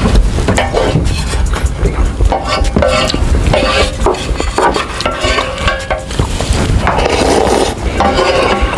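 Wooden spoon stirring instant noodles in broth in a metal pan, with repeated scrapes, clinks and liquid sloshing against the pan. Near the end, noodles being slurped.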